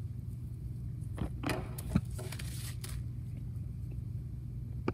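Light handling noises: rustling of tissue paper and small plastic bags with a few clicks and a sharp tap about two seconds in, as doll clothes and bagged accessories are moved about on a table. A steady low room hum runs underneath.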